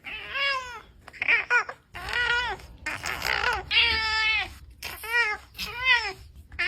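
A cat meowing over and over, about seven meows of half a second or so each, each rising then falling in pitch.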